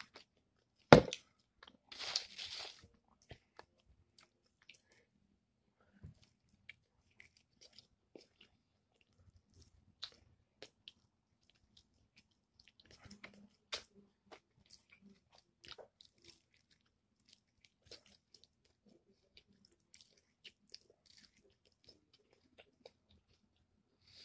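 Close-up chewing and biting of crispy fried chicken, with small crunches and mouth clicks scattered through. About a second in there is one sharp knock, the loudest sound, followed by a brief rustle.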